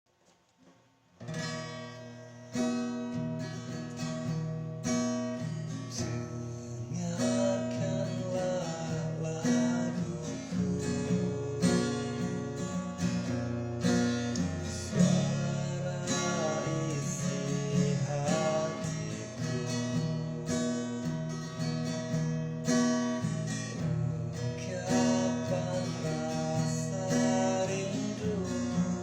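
Acoustic guitar music, strummed, starting about a second in after a brief silence.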